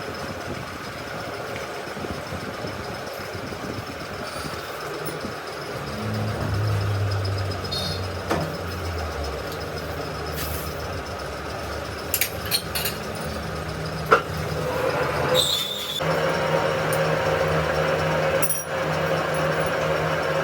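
A motor or engine running with a low, steady hum that gets louder about six seconds in, with scattered sharp clicks and knocks over it.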